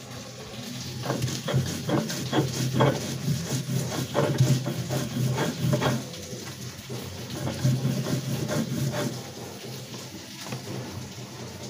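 Grated coconut being ground by hand on a shil-pata, a flat stone slab worked with a stone roller: a run of irregular scraping, rubbing strokes of stone on stone, easing off near the end.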